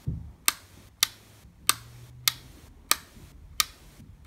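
A white wall rocker light switch being clicked on and off by hand, seven sharp clicks at a steady pace of about one every 0.6 seconds. This is the rapid on-off cycling that resets an IKEA Tradfri smart bulb so it can be paired.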